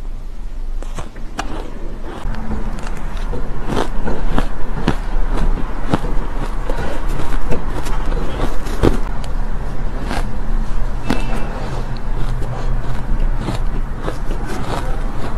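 Close-miked chewing and crunching of soft, crumbly shaved ice, a rapid irregular crackle of small sharp crunches, densest in the middle, with spoon scoops into the ice. A steady low hum runs underneath.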